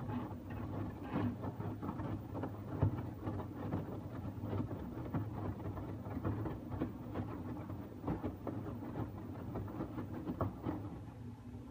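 LG TurboWash front-loading washing machine's drum tumbling a wet cotton load in the main wash of a 60 °C cycle with steam: a steady motor hum under irregular splashes and knocks of laundry and water falling in the drum. The sound eases off near the end as the tumble stops.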